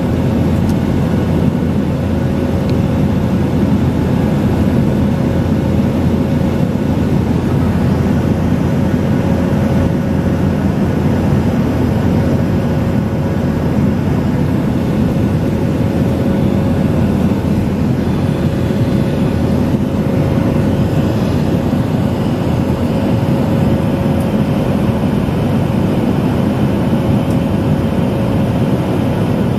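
Jet airliner cabin noise in flight, heard from a window seat over the wing: a steady, unbroken low roar of the engines and airflow, with a thin steady hum above it.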